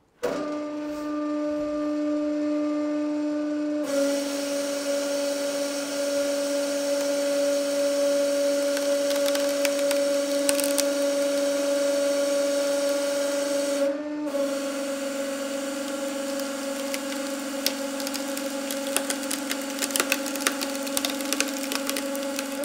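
Hydraulic press running under load with a steady hum, its pitch dipping slightly about four seconds in when a hiss joins it, and a brief break later on. Over it come sharp cracks and crackling from the lumber splitting as the screw is forced into it.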